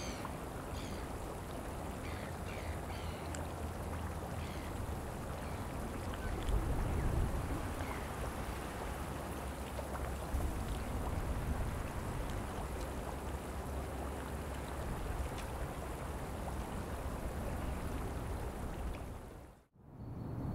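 Outdoor lakeshore ambience: a steady rushing noise, with short high bird chirps in the first few seconds. The sound cuts off abruptly near the end.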